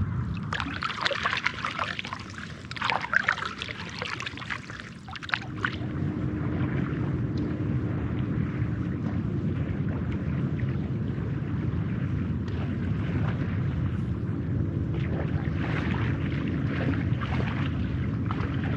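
River water splashing and trickling close to the microphone for about the first five seconds, then a steady low rumble with a faint hum.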